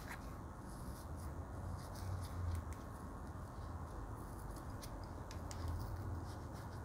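Faint scratching and scattered light ticks of a stick poking and loosening potting soil in a pot, over a low steady hum.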